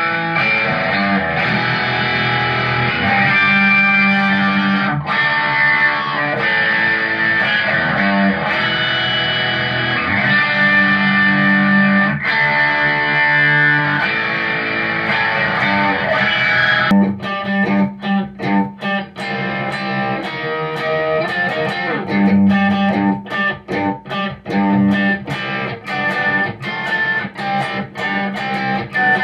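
Squier electric guitar played through an M-VAVE MK-300 multi-effects preset with distortion. It plays held, ringing chords for about the first 17 seconds, then switches to short, choppy chords with brief gaps between them.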